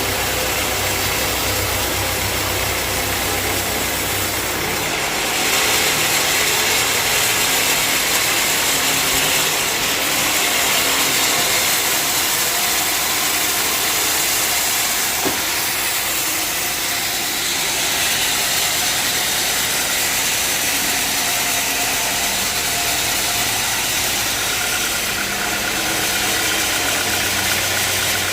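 Sawmill bandsaw machinery running steadily, a motor's low hum under the noise of the saw. About five seconds in the low hum drops away and a louder, higher, noisier sound takes over, with the low hum coming back near the end.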